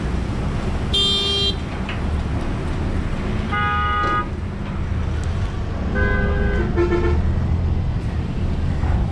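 Car horns honking in short blasts, about four times and at different pitches, over a steady low rumble of vehicle engines.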